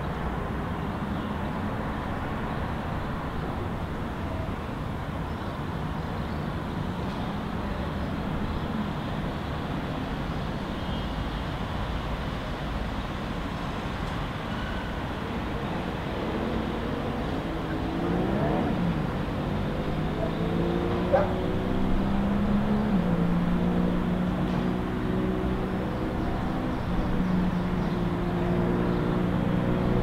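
Steady hum of city road traffic; about halfway through, a vehicle engine comes up out of it, accelerating through its gears and growing louder toward the end.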